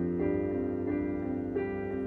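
Kurzweil electric keyboard playing sustained chords, struck again in an even rhythm, as the instrumental intro to a song before the vocal comes in.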